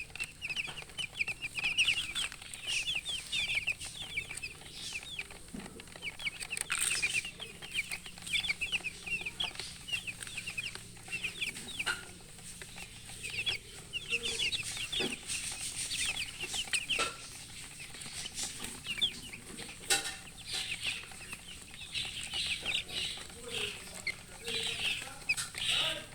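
Chicks peeping in a busy chorus of short, high, falling cheeps, joined now and then by a few low clucks from a hen.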